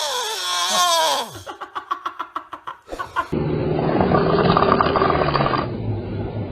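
Snoring from more than one sleeper, cut together: a high wavering whine that rises and falls breaks into a fast fluttering rattle, then about three seconds in a loud, rough rumbling snore takes over.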